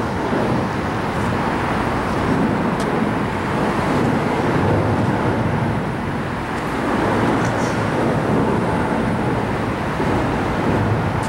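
Steady rushing noise of wind on the microphone and falling rain, with a couple of faint clicks.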